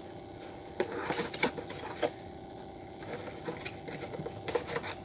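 Irregular small clicks and rustles of packaging and small parts being handled, as the box is searched for the speaker's charger, over a faint steady hum.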